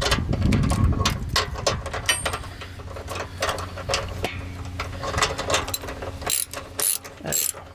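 Hand ratchet wrench clicking in quick, irregular runs as it loosens a 13 mm exhaust hanger bolt, with a low rumble in the first second or so.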